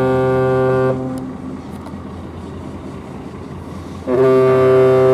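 A large car carrier's ship whistle giving departure blasts. One deep, steady horn blast stops about a second in, and a second blast starts about four seconds in; each leaves a short fading echo.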